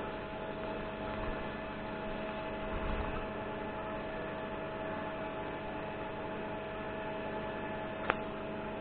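TIG welding arc humming steadily as a weld is laid, with a single sharp click near the end.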